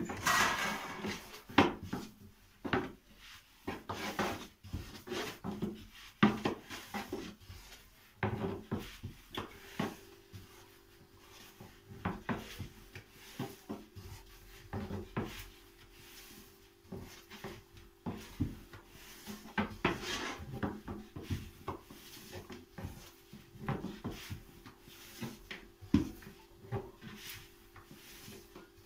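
Long thin wooden rolling pin (oklava) rolling dough out on a round wooden board: irregular wooden knocks and clacks with rubbing as the pin rolls and turns over the board.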